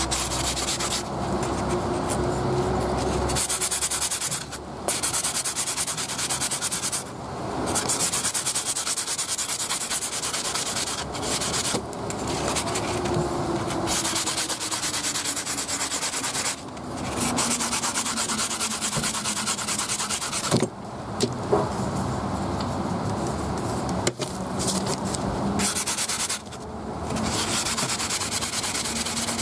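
Abrasive sanding sponge scrubbed rapidly back and forth over the edges of a SteelClaw Aspid folding knife's removed handle scale, rounding off its sharp milled edges. A steady scrubbing, broken by a few brief pauses.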